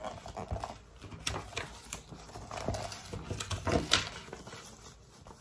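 Small items and packets being handled and packed into a bag: scattered light knocks, taps and rustles.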